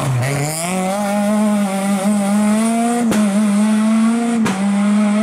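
Renault Mégane coupé rally car's engine pulling out of a hairpin: the revs dip low at the start, then climb and hold high, with two short breaks in the note about three and four and a half seconds in.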